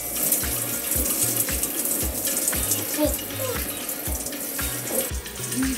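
Background music with a steady bass beat over the hiss of running water, which eases off about five seconds in.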